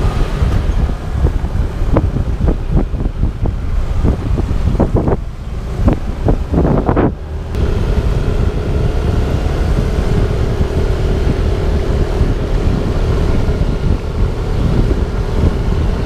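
Wind buffeting the microphone of a camera on a moving motorcycle, a loud, gusty rumble. About halfway through, the bike's engine comes through as a steady hum under the wind.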